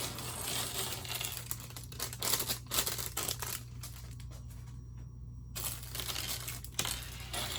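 Plastic Lego parts bag crinkling and being torn open, with a pause of about two seconds midway.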